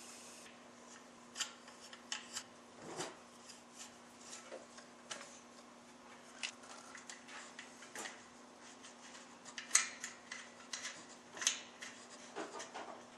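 Scattered light clicks and rubbing as small hardware and rubber motor-mount bushings are handled and fitted by hand, with a faint steady hum underneath.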